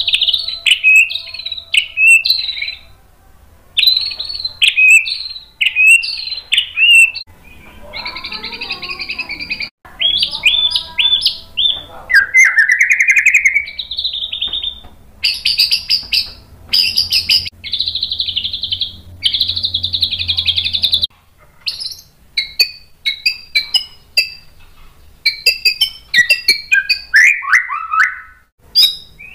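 Male white-rumped shama (murai batu) singing loudly in a varied stream of quick whistled phrases, rising glides and fast trills, with stretches of harsh buzzy notes in the middle.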